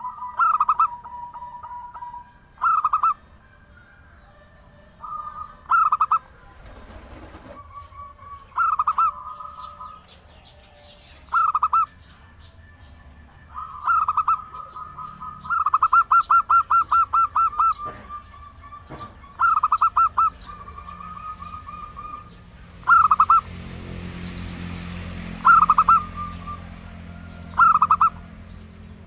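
Female zebra dove (perkutut) calling: short bursts of quick staccato coos repeated every couple of seconds, with one longer run of rapid coos about halfway through. It is the female's call used to lure a male.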